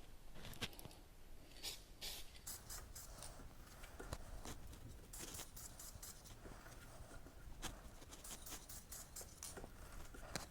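Short hissing bursts of aerosol chain wax sprayed onto a motorcycle chain, several in a row, one longer about halfway through, with light clicks in between.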